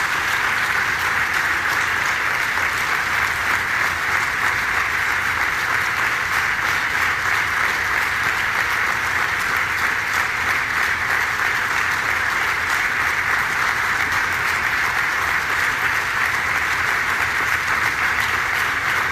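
An audience applauding, long and steady.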